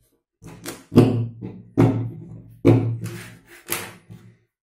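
Small plastic bottles being set down and shuffled on a tabletop: an irregular run of knocks and clatters, some loud and some light.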